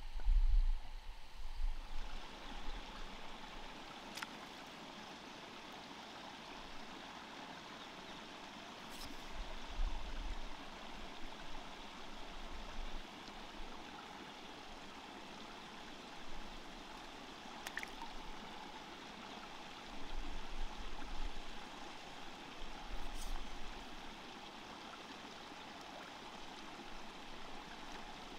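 Stream water flowing steadily. Deep low thuds of handling or movement come near the start and a few times later.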